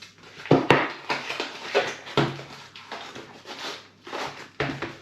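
Irregular rustling and crinkling of a parcel being wrapped by hand, with a sharp click well under a second in.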